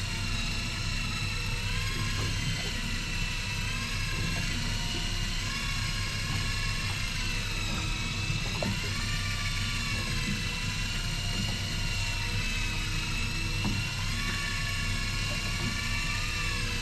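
Electric fishing reel motor whining steadily as it winds in line, its pitch dipping and rising gently every few seconds, over the low steady hum of the boat's engine.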